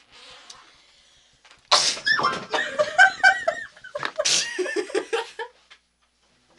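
Two loud, sudden sneezes about two and a half seconds apart, each followed by a run of short pitched vocal sounds.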